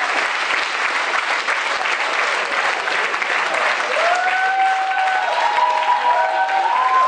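Audience applauding. From about four seconds in, several long held tones at different pitches join in over the clapping.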